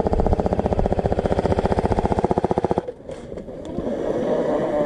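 Airsoft electric light machine gun firing one long full-auto burst, a fast, even stream of shots over the whine of its gearbox, stopping abruptly about three seconds in.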